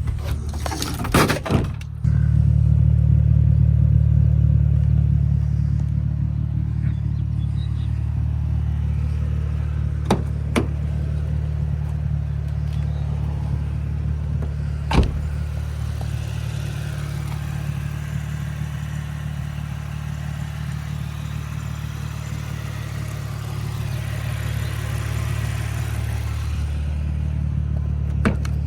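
Infiniti G35's VQ35DE 3.5-litre V6 idling steadily, a low even drone. A few sharp clicks sound over it, about a second in and again near ten and fifteen seconds.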